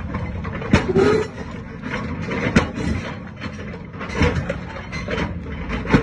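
Excavator ripper tooth breaking and dragging through broken concrete slab: irregular sharp cracks, knocks and scrapes of steel on concrete over the low, steady rumble of the excavator's engine.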